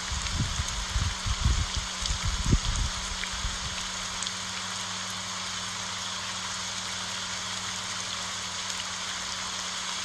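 Steady rain falling on large elephant-ear leaves, an even hiss of drops. During the first few seconds a run of irregular low thuds sounds over the hiss, then only the steady rain is left.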